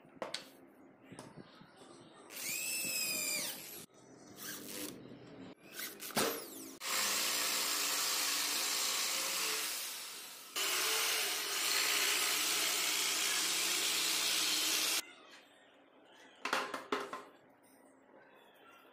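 Corded electric drill spinning up with a brief rising whine, then running for two long stretches of several seconds each as it bores into wood. A few sharp knocks follow near the end.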